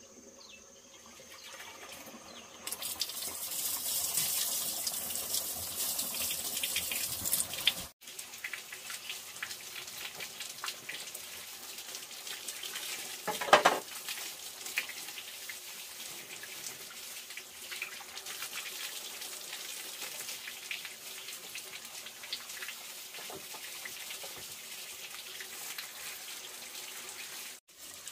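Water pouring from a bamboo pipe and splashing onto a bamboo-slat floor, loudest for a few seconds early on and then steadier with small splashes. There is one brief, louder splash about halfway through, as hands go into the stream.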